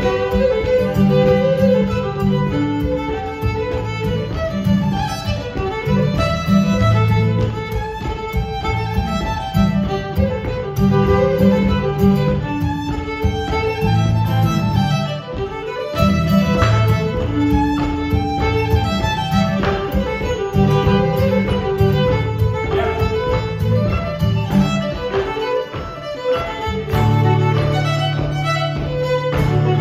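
Fiddle and acoustic guitar playing a tune together: the violin carries the melody over strummed guitar chords.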